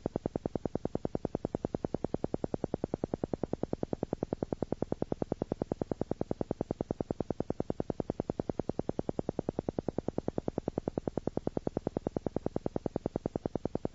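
Theta brainwave-entrainment tone: a low-pitched sound pulsing on and off very evenly, about six pulses a second.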